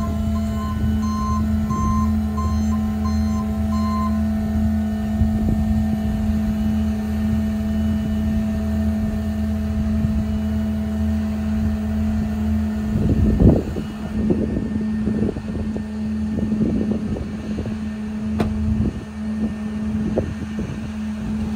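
Garbage truck engines idling under a steady hydraulic whine as a mini garbage truck's tipping hopper body is lowered from dumping into a rear loader; a backup-style alarm beeps about twice a second for the first few seconds. The whine stops about 13 seconds in with a loud clunk, followed by scattered knocks and clanks.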